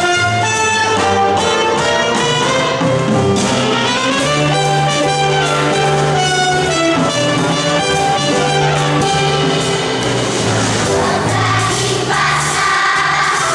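Instrumental music with brass and orchestra: a melody of held notes over a steady bass line, the accompaniment to a children's choir song. It grows fuller near the end.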